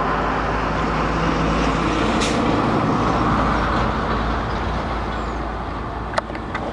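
Indian Railways passenger coaches of a 24-coach express rolling past: a steady rumble of wheels on rail that eases off slightly over the last couple of seconds. There is a brief hiss about two seconds in and a single sharp knock near the end.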